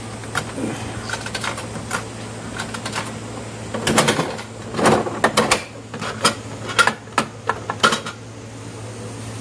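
Coins clicking into a capsule-toy (gashapon) vending machine, then its dial turned with a run of loud ratcheting clicks and the plastic capsule clattering out.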